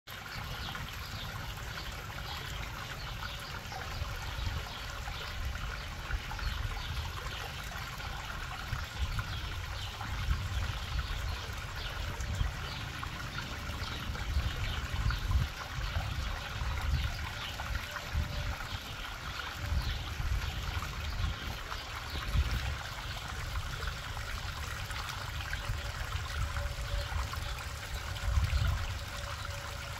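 Small rock waterfall trickling and splashing steadily into a backyard garden pond, with uneven low rumbling on the microphone underneath.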